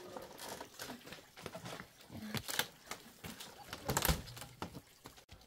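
Scattered clicks and knocks, like things being handled, with a louder thump about four seconds in.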